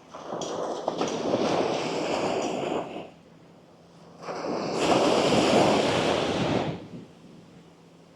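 Gentle surf on a sandy beach: two waves break and wash up the shore, the second louder, with quieter lulls between them.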